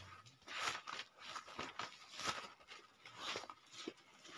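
Thin paper pages being leafed through, a series of short soft rustles a few times a second, as in hunting for a chapter in a Bible.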